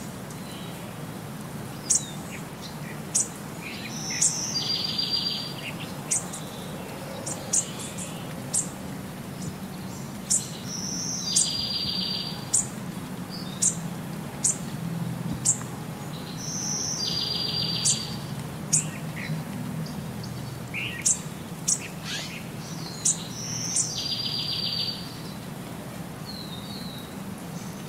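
Small birds chirping: short high chirps scattered throughout, with a brief trill coming back about every six seconds, over a low steady hum.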